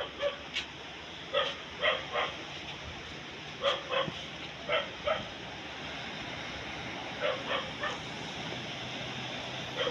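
An animal giving short, yelping calls in quick clusters of two or three, repeated several times.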